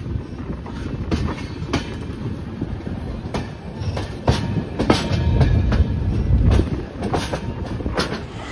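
Passenger train coach running along the track, heard from its open doorway: a steady heavy rumble with irregular clacks as the wheels pass over rail joints.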